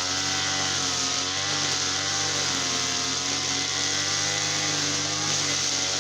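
Small petrol engine running steadily at a fairly constant speed, its pitch wavering slightly.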